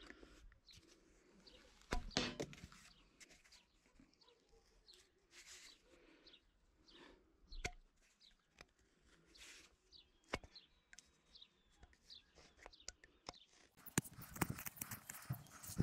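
Faint, scattered scrapes and clicks of a knife blade cutting and shaving the end of a blue plastic pipe, with a few faint bird chirps. The handling clicks grow denser and louder near the end.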